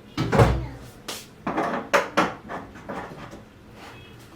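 Kitchen clatter: a quick run of knocks and clanks, about seven in the first three seconds, the loudest near the start, then quieter handling.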